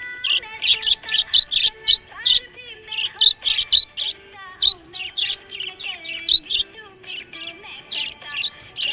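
Small pet parrots chirping and chattering rapidly, many short high notes in quick succession, over a held, gliding melody.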